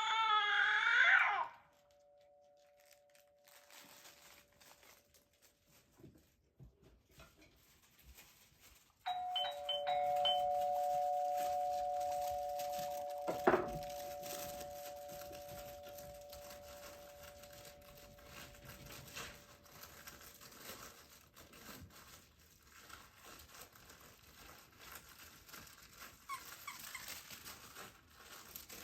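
Doorbell sound effect: a two-tone ding-dong chime about nine seconds in, its two notes ringing on and slowly fading over several seconds. The end of a recorded baby's cry is heard at the very start, with a sharp click a few seconds after the chime and faint crinkling rustles in between.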